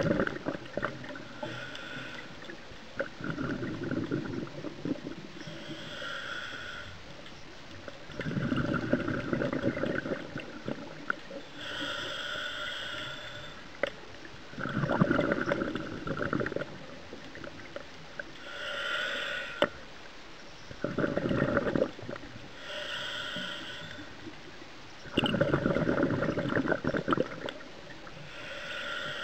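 Scuba diver breathing through a regulator, heard underwater: a short hiss as the demand valve opens on each inhale, then a longer rush of exhaled bubbles. Five breaths, about one every six seconds.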